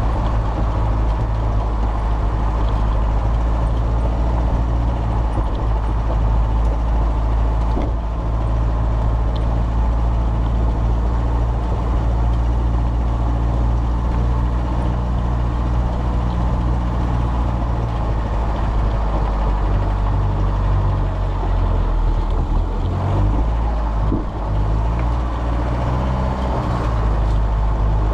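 Land Rover ambulance camper's diesel engine running as it crawls along a rough off-road track, a steady low drone whose pitch steps up and down several times in the last third as the revs change.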